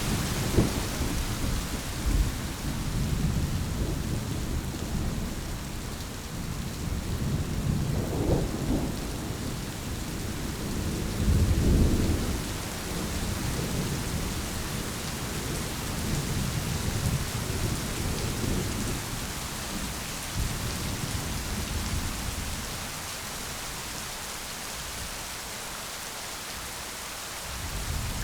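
Steady rain with rolling thunder rumbling in the distance, one louder swell of thunder about eleven seconds in, the rumble easing off near the end.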